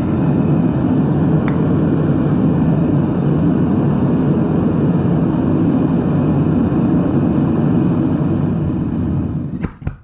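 Propane burner of a small Devil Forge melting furnace running with a steady rushing noise at full fire. Near the end the burner is shut off and the noise cuts away within about half a second, with a couple of sharp clicks.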